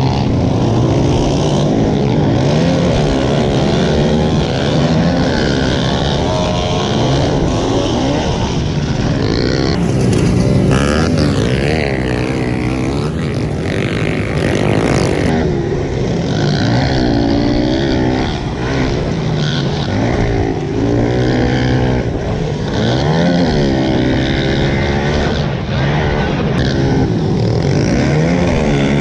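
Several pit bike engines racing together, each revving up and falling back as the riders shift and brake, so the pitches keep crossing and overlapping.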